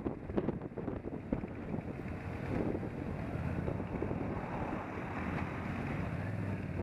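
Wind buffeting the microphone over a cruiser motorcycle's engine running steadily while it is ridden along at road speed.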